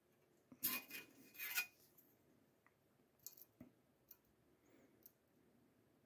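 A steel rule and scriber handled on a steel plate: a few short metallic scrapes and clinks about a second in, then some faint light clicks.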